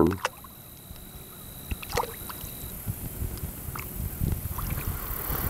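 Hands swishing and sloshing in shallow lake water, with small splashes and trickles.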